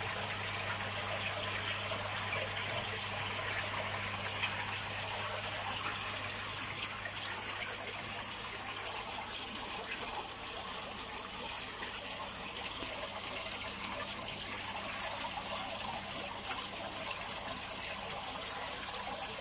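Steady, even rush of running water in a koi pond setup, with a low steady hum underneath.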